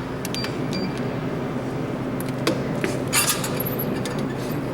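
Coins being fed into a vending machine's coin slot: light clicks and metallic clinks, with a sharper cluster of clicks about three seconds in, over a steady low hum.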